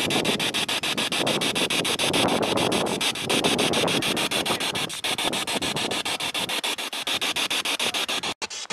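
Spirit box sweeping through radio stations: rapid choppy static, about nine cuts a second, with brief smeared scraps of broadcast sound between the cuts, which the investigator reads as a spirit answering (captioned "Sabra was shot"). It drops out for a moment near the end.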